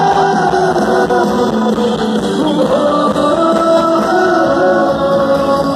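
Live sertanejo pop band music with a sung melody, played loud over a concert sound system and heard from within the crowd.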